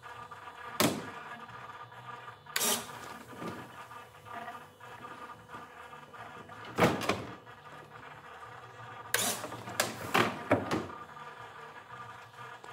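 Retractable landing gear of a 1/5-scale F-16B model jet cycling up and down, with several sharp clunks as the legs and gear doors move and lock, a cluster of them near the end, over a steady hum.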